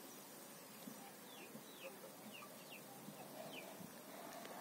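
Faint, high bird chirps: about six short calls, each sliding down in pitch, over a couple of seconds in the middle, against quiet background hiss.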